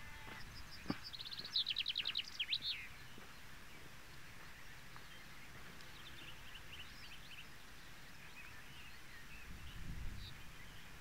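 A small songbird singing a short, quick run of high notes ending in a flourish about one and a half seconds in, then fainter song around six to seven seconds, over quiet outdoor background noise.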